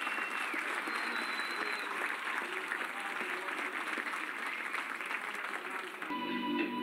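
Audience applauding an introduction on stage. Near the end it cuts off abruptly and music begins.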